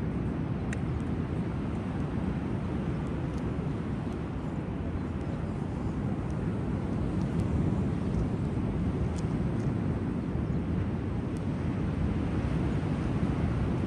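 Ocean surf on a sandy beach: a steady low rumble of breaking waves, rising and falling slightly without any clear breaks.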